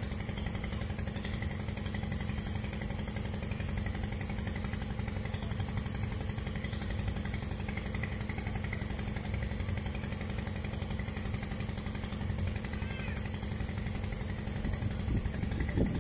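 Steady drone of an engine running at constant speed, with a few faint bird chirps over it.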